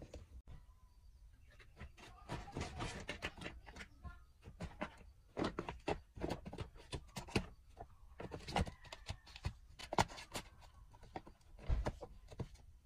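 Irregular knocks, taps and rustling of objects being handled, in quick uneven clusters.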